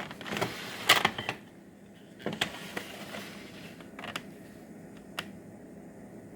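Plastic cassette tape cases clacking and sliding against each other as they are handled and set down: a cluster of sharp clicks with scraping about a second in, a few more a second later, and single clicks near four and five seconds in.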